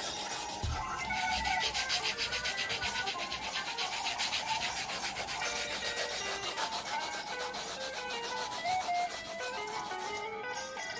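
Pencil rubbing quickly back and forth on paper while shading, in a fast run of even scratchy strokes that dies away near the end. A simple melody of background music plays under it.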